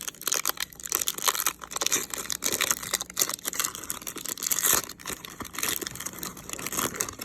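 Crinkling and tearing of a trading-card pack's wrapper as it is unwrapped and pulled open, a dense run of small crackles.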